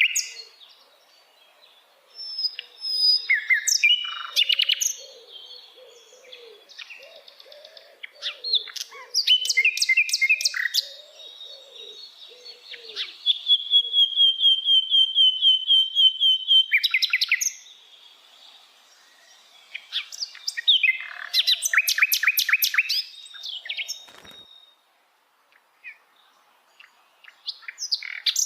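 A sikatan londo flycatcher singing: bursts of rapid, high trilling phrases separated by short pauses, with one long even trill in the middle.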